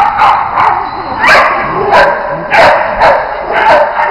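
A dog barking repeatedly and loudly, about two sharp barks a second in an uneven run.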